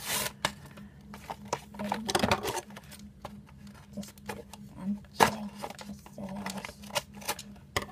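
Plastic blister packaging being cut open with scissors: irregular snips, clicks and crinkles of the stiff plastic, with a few louder crackles.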